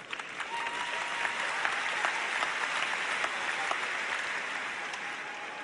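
Large arena crowd applauding, a dense patter of many hands clapping that builds over the first couple of seconds and eases near the end.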